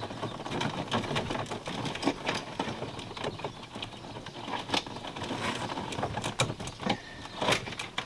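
Hands working wiring down into a plastic RV dash panel: irregular clicks, small plastic knocks and rustling of wires, with a few sharper clicks in the second half.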